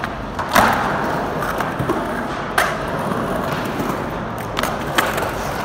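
Skateboard wheels rolling and carving on a concrete bowl with a steady rumble, broken by three sharp clacks of the board or trucks about two seconds apart, the first and loudest about half a second in.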